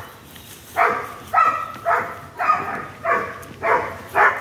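Black-and-tan dog barking repeatedly, about seven sharp barks at an even pace of one every half second or so. It is a dog being trained out of aggression, one that will not accept being touched.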